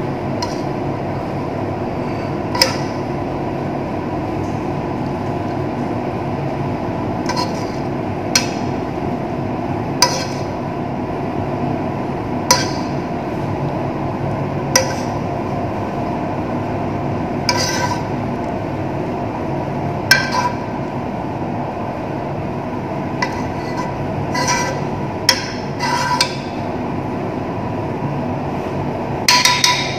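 Metal serving spoon clinking and scraping against a nonstick frying pan and a ceramic plate as pasta is spooned out, more than a dozen sharp clinks at irregular intervals. A steady background hum runs underneath.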